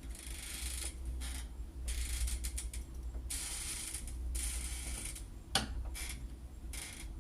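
A screwdriver turning screws into a deadbolt lock, in a series of turning strokes each under a second long with short pauses between them, and a sharp click about five and a half seconds in.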